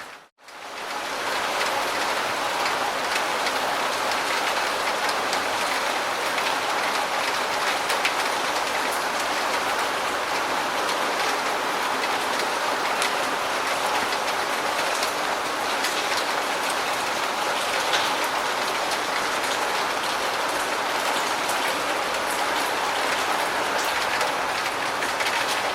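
Steady rain falling: an even hiss with scattered individual drops ticking through it. Just after the start it cuts out for a fraction of a second and fades back in, like a loop splice in the recording.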